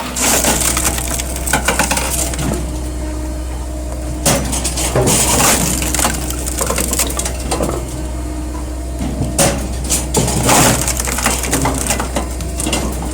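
F500 firewood processor splitting logs: wood cracks and crunches again and again, over a steady low drone from the machine.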